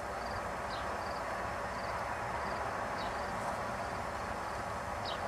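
Steady outdoor field background noise with faint, short, high insect chirps repeating at an even pace.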